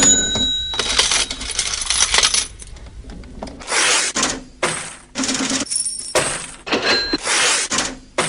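Coins clinking and jingling in a series of separate bursts, opening with one sharp ringing metallic strike.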